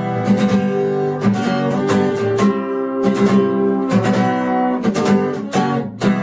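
Acoustic guitar strumming chords in the instrumental close of the song, with no singing.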